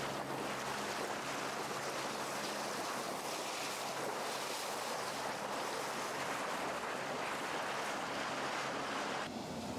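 Water rushing and splashing along the side of a small inflatable boat running at speed, with a faint low steady hum underneath. The rush eases shortly before the end.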